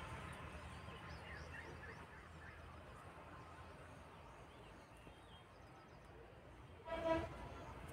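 Faint outdoor ambience over a crop field: a low steady hum with scattered faint bird chirps, and about seven seconds in, one short, loud pitched call, the loudest sound.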